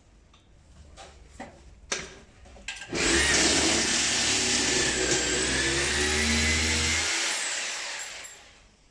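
Electric power tool: a few faint knocks, then about three seconds in the motor starts, runs loudly with a high whine for about four seconds, and is switched off and winds down.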